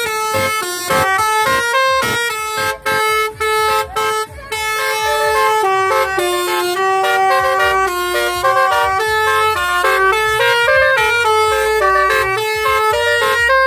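Telolet basuri melody horn on a pickup truck playing a tune: held horn notes step up and down in pitch, choppy with several short breaks about three to four and a half seconds in.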